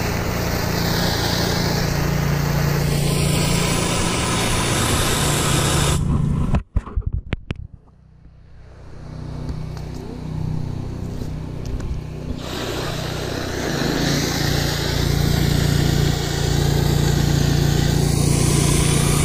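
Engine-driven pressure washer running with its wand spraying water onto brick pavers, a steady hiss over a low engine hum. About six seconds in the spray cuts off with a few sharp clicks and the sound drops away. It builds back over the next few seconds, and the full spray returns about twelve seconds in.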